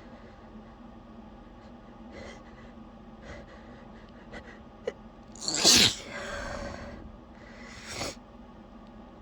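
A woman's held-back sneeze breaking through: a few short catching breaths, then one loud, sharp sneeze a little past halfway that trails off into a breathy exhale, and a second, softer burst about two seconds later.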